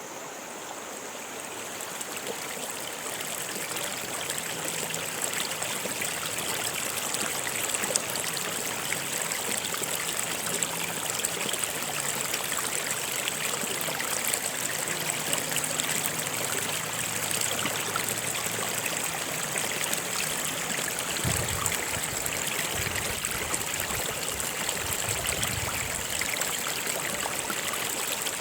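Stream water running steadily over rocks, a continuous rushing and trickling that fades in over the first few seconds.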